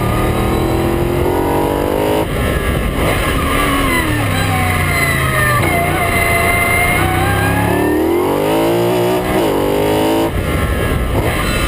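Pilbeam MP43 sports racing car's engine at full race pace, heard from the cockpit. The revs climb and then drop sharply several times through gear changes, and sweep up and down between corners.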